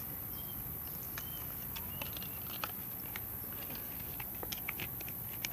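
Quiet outdoor background with scattered light clicks and crinkles from a pack of AA batteries being handled, the clicks coming more often in the last second or so. A few faint short high chirps come in the first two seconds.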